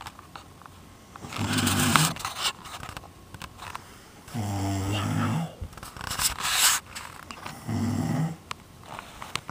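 A person snoring: three low, pitched snores, each about a second long and roughly three seconds apart, with breathy breathing between them.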